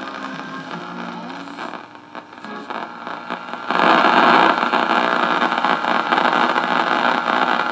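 Radio frequency interference heard through a shortwave receiver's speaker on the AM broadcast band: a steady frying, crackling noise over a faint station. About four seconds in the noise jumps much louder and stays there. It is a new local noise of unknown cause, which the listener suspects is coming from something in the house.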